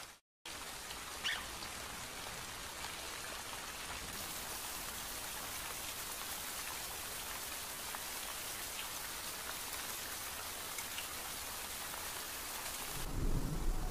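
Steady monsoon rain falling as an even hiss, with a brief cut-out just after the start.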